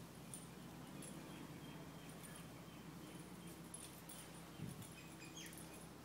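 Near silence: faint outdoor background with a low steady hum, a few faint high chirps and a soft bump about four and a half seconds in.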